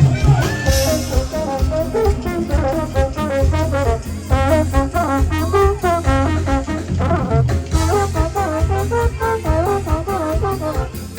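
Latin dance music with a brass section of trumpets and trombones playing short melodic figures over a steady bass beat.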